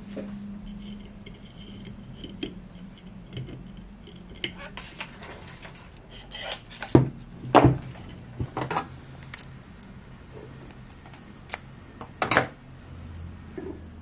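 Scattered clicks, light metallic rattles and small knocks from wires and small parts being handled around a scooter hub motor's stator. A few sharper knocks come around the middle and once near the end.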